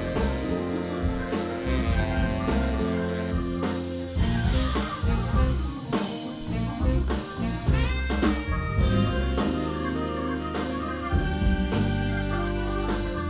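Live band playing: electric bass, keyboards and drum kit, with saxophone.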